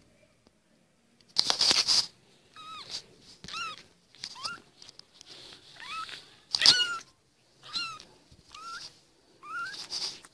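A young kitten mewing over and over, short high-pitched cries about one a second. A loud noisy burst comes about a second and a half in, before the cries begin.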